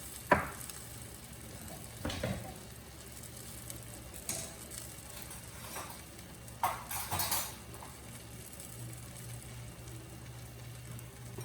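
Dough pie frying in oil and ghee in a pan with a faint steady sizzle, and a few short clinks and scrapes of a utensil against the pan, the sharpest just after the start and a small cluster later on.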